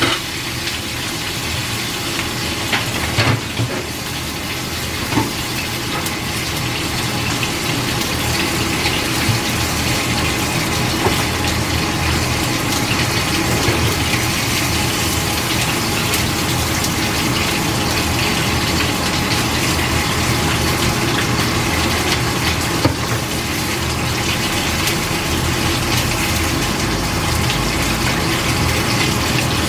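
Water boiling hard in a steamer pot on the stove: a steady bubbling rush that grows a little louder over the first several seconds, then holds.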